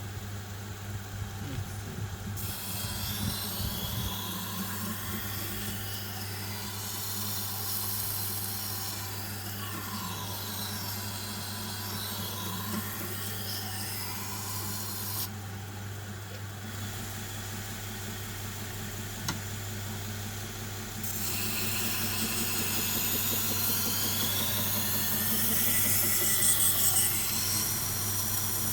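Belt grinder motor running with a steady hum while a knife blade is held against the moving sharpening belt, giving long passes of hissing, rasping grinding. The grinding comes in two long passes, the second louder.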